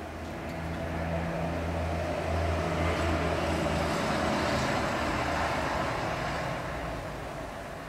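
A road vehicle passing by: a noisy rumble that swells up over a few seconds and fades away again, over a low steady hum.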